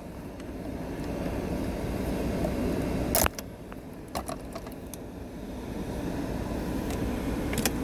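Plastic retaining clips of a wooden console trim panel snapping loose as it is pried off with a trim tool: one sharp snap about three seconds in, a few lighter clicks a second later and another snap near the end, over a steady low rumble.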